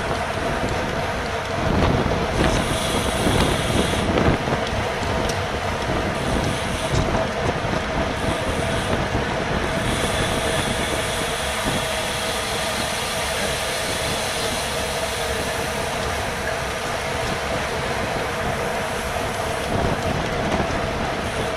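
Wind rushing over a GoPro action camera's microphone on a bicycle ridden at race speed, with road rumble and a steady hum underneath.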